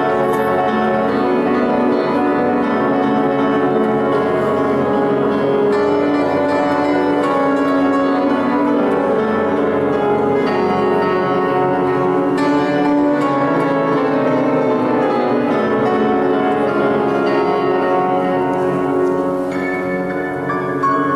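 Grand piano playing a classical solo piece without pause.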